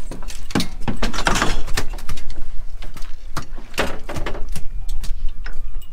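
Repeated knocks and clatter of work on an aluminium fishing-boat deck, with a couple of bursts of rushing noise, over a steady low drone.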